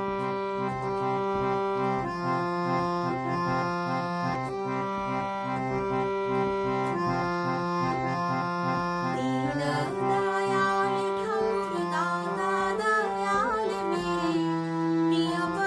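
Instrumental introduction to a Hindi bhajan: long held chords on a free-reed keyboard instrument, changing every couple of seconds. About nine seconds in, a melody of sliding, ornamented notes joins above them.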